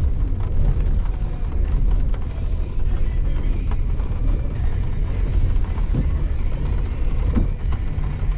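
Off-road vehicle crawling over rocky ground: a steady low rumble of the engine and drivetrain, with a few scattered knocks from the tyres and suspension working over rocks.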